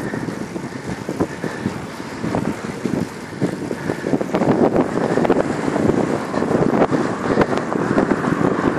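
Wind buffeting the microphone at riding speed: a steady rushing noise with irregular crackling gusts.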